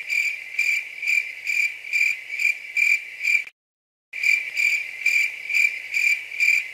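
Cricket chirping: a high, steady trill that pulses about twice a second. It cuts out abruptly for about half a second a little past three seconds in, then resumes.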